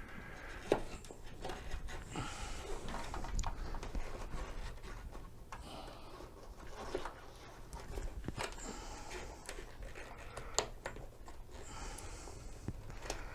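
Scattered clicks and light knocks of metal parts and tools being handled while a mobility scooter's tiller is being fitted back onto its steering mast. The sharpest knocks come about a second in and near the end.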